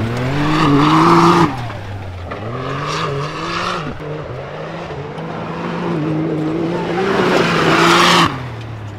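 Can-Am Maverick four-seat side-by-side engine revving up and down as it powerslides through dirt, with the loudest surges cut off sharply at about a second and a half and again near the end.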